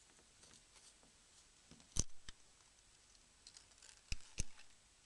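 A few sharp clicks and ticks from small hand tools working on the phone's parts while its glued flex assembly is peeled up: a single click about two seconds in, a fainter one just after, and two more close together near the end.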